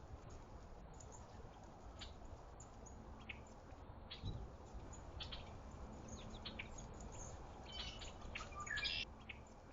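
Small birds chirping: scattered short chirps, with a busier run of calls near the end, over a steady low outdoor rumble. A single low thump about four seconds in.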